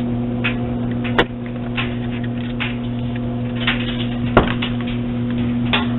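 Steady electrical mains hum, with a few scattered clicks and knocks, a sharp click about a second in and a louder knock past four seconds.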